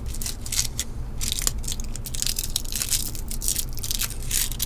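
Close-up crinkling and rustling in irregular bursts as a plastic parts bag and the stripped end of a network cable are handled.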